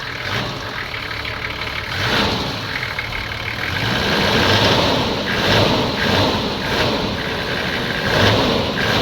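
Toyota 1HZ straight-six diesel engine running, its sound swelling and easing every second or so.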